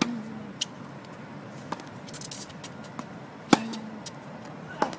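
Tennis racket hitting the ball in a rally on a hard court: sharp pops right at the start and about three and a half seconds in, with fainter hits and ball bounces in between.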